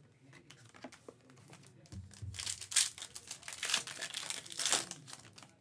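Foil wrapper of a Panini Prizm basketball card pack being torn open and crinkled by hand. Light clicks of cards being handled come first, then a crackling tear and crinkle from about two seconds in to near the end.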